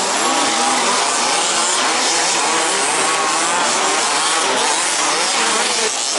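Several remote-control racing buggies running together on the track. Their motors overlap, each pitch rising and falling as the cars accelerate and slow through the corners.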